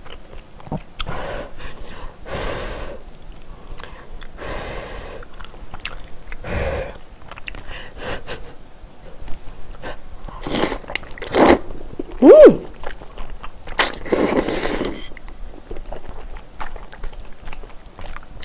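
Close-miked slurping and chewing of spicy seafood knife-cut noodles (kalguksu), in a series of separate slurps, the loudest in the second half. About twelve seconds in, a short hum that rises and falls in pitch.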